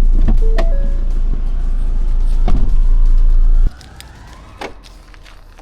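Camper van engine running with a steady low rumble, with clicks and a few short beeps early on, then cutting off suddenly about three and a half seconds in.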